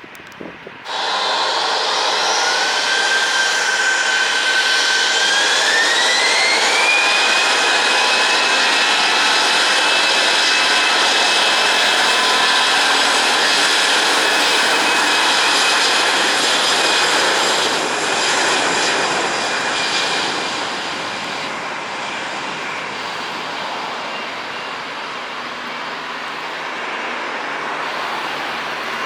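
Airbus A320 jet engines spooling up to takeoff thrust: a loud sound comes in suddenly, its high whine rising in two steps over the first several seconds, then holding steady before easing off a little after about twenty seconds.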